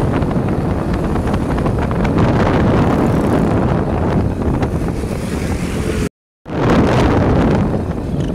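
Road noise of a moving vehicle mixed with wind buffeting the microphone. The sound drops out completely for a moment about six seconds in, then carries on.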